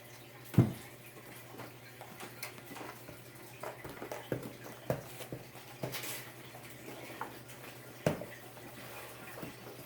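Scattered small knocks and clicks of containers and utensils handled on a table while slime is mixed, with two sharper knocks, about half a second in and about eight seconds in, over a steady low hum.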